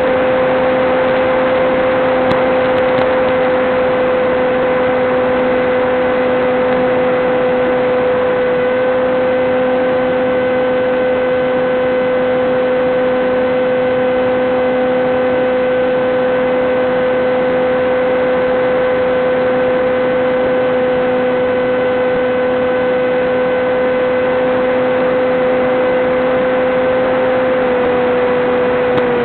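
Electric motor and propeller of a Teksumo flying wing running at steady throttle: a steady buzzing hum over hiss, heard through the FPV video link's onboard audio. The pitch drops slightly near the end.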